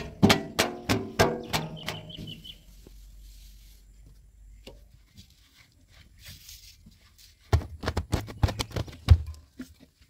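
A cloth rubbing and slapping on the painted bodywork and glass of a JCB 3DX backhoe loader. A quick run of short rubs with pitched squeaks comes in the first couple of seconds, then a cluster of knocks and thumps about three-quarters of the way through.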